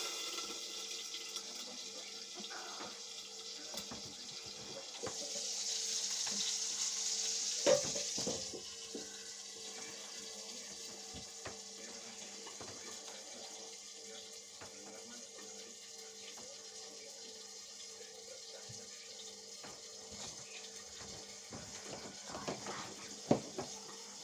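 Indesit washing machine in a wash with water: steady hissing and splashing of water in the machine over a low steady hum, louder for a few seconds about five seconds in. Small knocks now and then.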